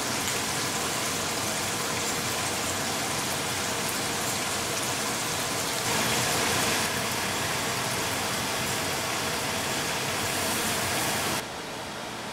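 A steady hissing noise that briefly grows louder and brighter about six seconds in, then drops away suddenly near the end.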